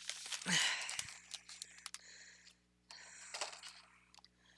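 Rummaging through craft supplies by hand: rustling of bags and packages with many small clicks and taps, in two spells, one at the start and another about three seconds in.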